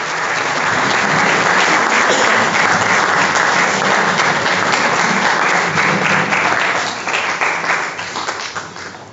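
Audience applauding steadily, the clapping thinning out and tapering off over the last couple of seconds.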